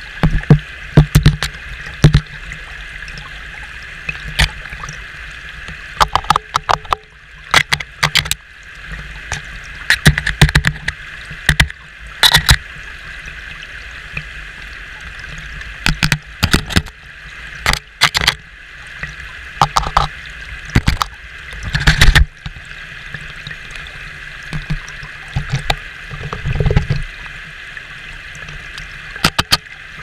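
Rushing water of a shallow rocky stream, steady throughout, with irregular clusters of sharp, loud knocks as an American dipper pecks at the camera right at the lens.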